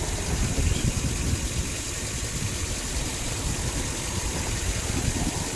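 2005 Land Rover LR3's 4.4-litre V8 idling with an uneven low rumble; the engine has multiple-cylinder misfires and runs rough.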